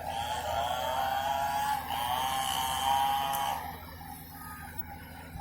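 Komatsu PC200 excavator working, its engine running with a steady low hum under a high wavering hydraulic whine. The whine stops about three and a half seconds in, leaving the quieter engine hum.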